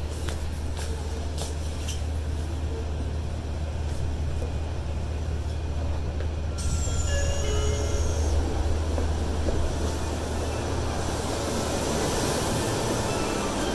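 Subway train running with a steady low rumble. About halfway, a high squeal falls in pitch as the train brakes, with a few short tones around it. Near the end the rumble gives way to the even noise of a busy station platform.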